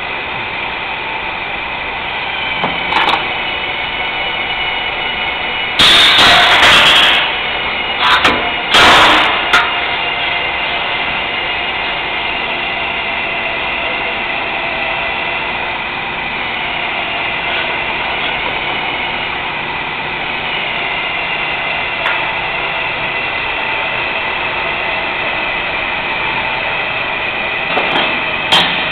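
Steady shop machinery hum with a high whine, broken by loud metallic clatter and knocks about six and nine seconds in and a few lighter clicks, as steel tubing and a hydraulic cylinder are handled.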